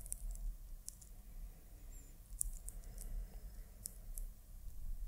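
Quiet room tone with a steady low hum and a handful of faint, sharp ticks scattered through it.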